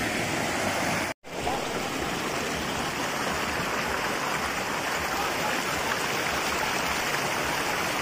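Water of a rocky waterfall stream rushing steadily over stones. The sound cuts out for an instant about a second in.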